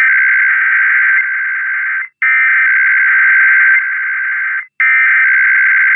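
Emergency Alert System SAME header data bursts: a loud, harsh, buzzing warble of digital tones, heard as three long bursts cut by very short breaks about 2 and 4.7 seconds in. It marks the start of an EAS Required Weekly Test.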